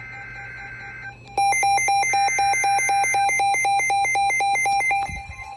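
Emergency alert receiver sounding its alert: a rapid run of loud electronic beeps, about eight a second, with two pitches together, lasting about three and a half seconds. It starts about a second and a half in and signals an incoming warning. Fainter steady tones come before it.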